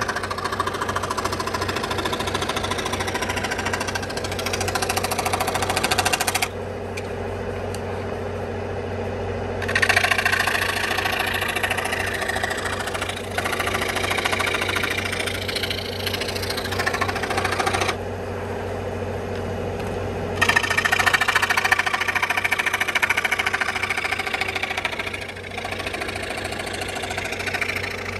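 Electric scroll saw running steadily and cutting wood. Twice the higher cutting noise drops away for a few seconds, leaving the lower motor hum.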